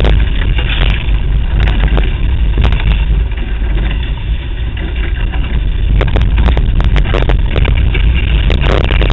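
Strong wind buffeting the microphone over the steady rush of water and spray off a Taipan 4.9 catamaran's hulls at high speed, with sharp splashes now and then.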